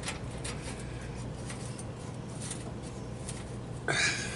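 Hands handling a stainless steel V-band exhaust clamp at the pipe joint, giving faint small metallic clicks and rubbing over a steady low hum, with a brief louder noise near the end.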